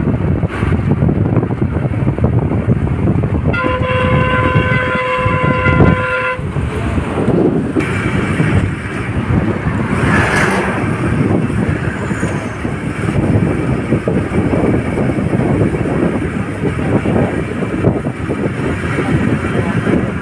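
Road and wind rush from a moving vehicle on a highway. A few seconds in, a vehicle horn sounds one steady note for about two and a half seconds. Around halfway, a truck passes close alongside with a brief swell of noise.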